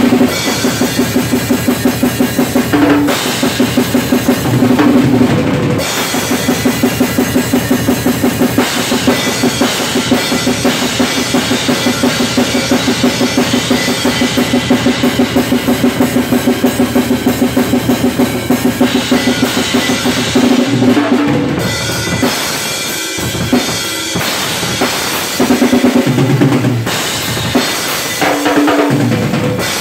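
Acoustic drum kit played solo: fast, even strokes on the snare and toms over bass drum and cymbal crashes. The playing breaks into sparser, separate hits for a few seconds about three-quarters of the way through.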